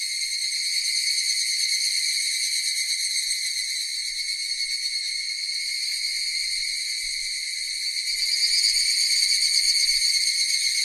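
Cicadas buzzing in a steady, high drone, growing a little louder about eight seconds in.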